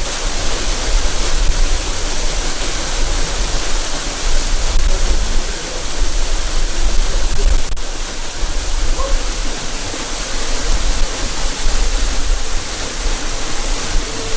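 Waterfall pouring into a river pool: a loud, steady rush of falling water with a deep low rumble underneath.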